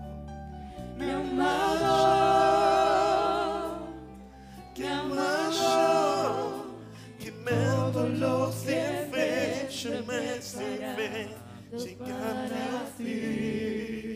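Live worship song: a group of singers holding long, wavering notes over steady band accompaniment.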